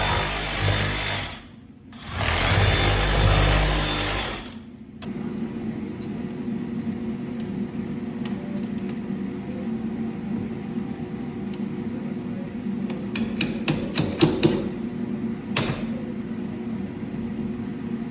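Jobsite tool noise. A loud power tool runs in two bursts with a short break between them, then a steady machine hum carries on. About thirteen to fourteen seconds in there is a quick run of sharp knocks, like hammer blows, and one more knock a little later.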